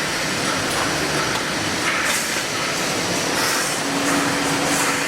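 Automatic steel wire mesh welding machine running, a steady mechanical noise with no let-up.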